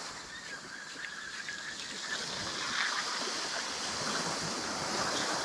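Steady wash of sea waves on the shore.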